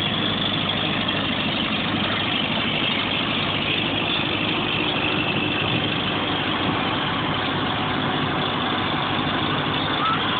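Minneapolis-Moline Z tractor's four-cylinder engine running steadily at low revs, close by, with no revving.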